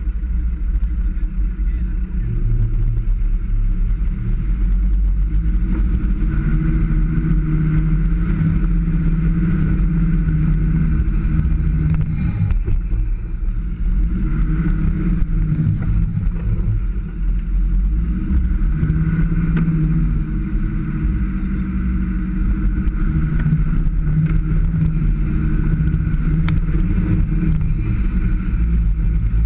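Land Rover Defender engine working off-road over a heavy, constant low rumble; its note rises and falls again and again as the throttle is worked.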